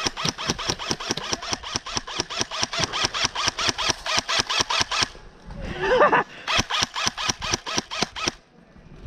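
Airsoft gun firing a rapid string of shots, about seven a second, for about five seconds. It pauses briefly with a short pitched sound, then fires a second string that stops suddenly. The player soon says the gun keeps jamming.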